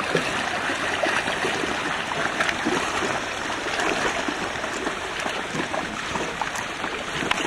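Water splashing and sloshing steadily, with a few faint knocks.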